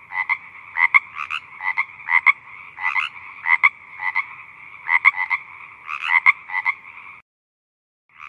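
Frogs croaking: repeated short calls, often in pairs, over a steady background chorus. The sound breaks off abruptly about seven seconds in, then resumes briefly near the end.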